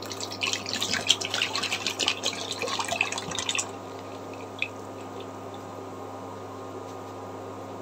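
Thick boiled milk poured from a bottle into a nonstick wok holding a little water, splashing steadily and stopping about three and a half seconds in. After that only a steady low hum remains.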